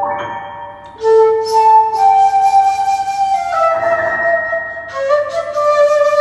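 Seven-hole 1.6-shaku shakuhachi playing long held melody notes with piano accompaniment in a slow, gentle piece. A new note starts strongly about a second in.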